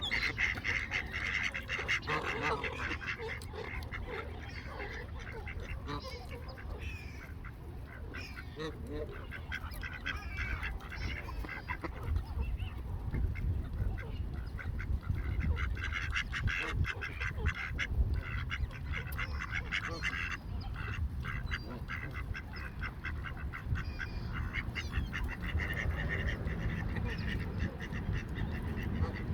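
A mixed flock of mallard ducks quacking and geese honking, with calls overlapping on and off throughout, over a steady low rumble.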